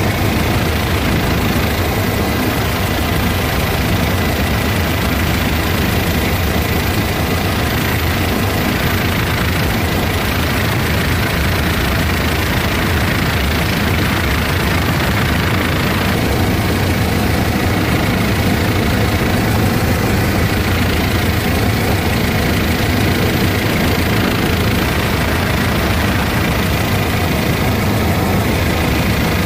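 Helicopter in flight: steady engine and rotor noise with a faint high whine.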